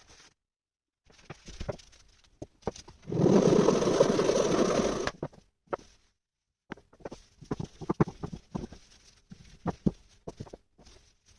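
Woodworking sounds from the making of a wooden mallet: a loud scraping noise lasting about two seconds, then a string of light knocks and clicks from the wood and tools being handled.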